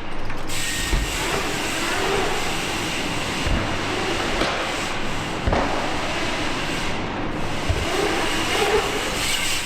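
Mountain bike riding a dirt flow line: a steady rushing rumble of tyres rolling on dirt, with a few short low thumps along the way.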